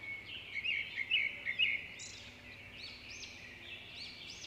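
Small birds calling in the background: a quick run of short chirps in the first two seconds, then repeated high, arching calls.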